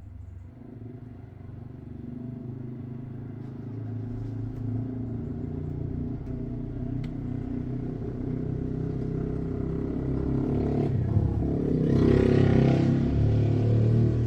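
Loud motorcycle engine approaching, growing steadily louder and loudest near the end as it comes close past.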